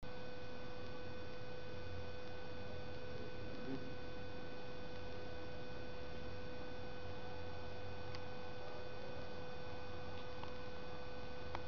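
Steady electrical whine made of several constant tones over hiss, with a few faint clicks in the second half.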